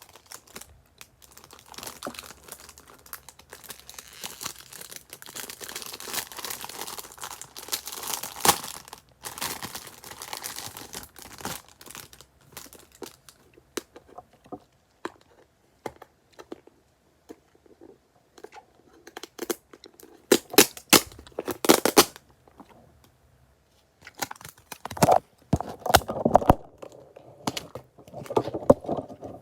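Packaging crinkling and tearing as items are unwrapped by hand, with a run of sharp crackles around twenty seconds in and louder rustling near the end.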